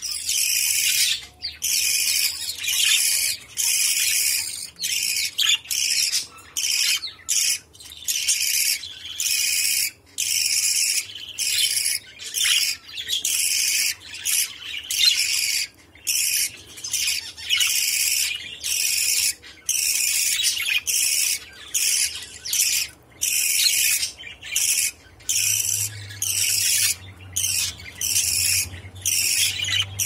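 Budgerigar chick begging while being fed by a parent at the nest-box entrance: rapid, high, raspy calls in continuous bursts broken by short pauses.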